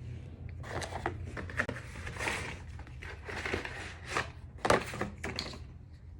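Packaging of a boxed home security kit being handled: irregular rustling and crinkling with several sharp clicks and knocks, the loudest about three-quarters of the way in, over a steady low hum.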